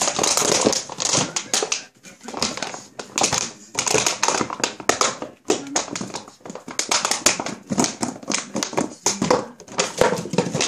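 An empty plastic cola bottle being bitten and chewed by a Border Collie: a rapid, irregular run of plastic crackles and crunches, with brief pauses about two seconds in and near the middle.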